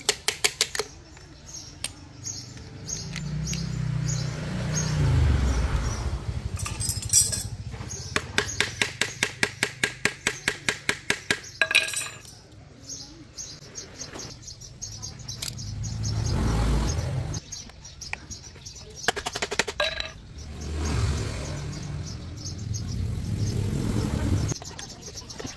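Runs of rapid sharp taps, about six a second, each run lasting a few seconds, alternating with slow swells of a low rumble.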